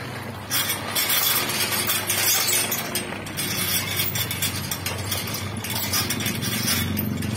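Sliding metal gate rolling along its floor rail, the wheel grinding on the track and the bars rattling and clinking; it starts about half a second in and stops just before the end.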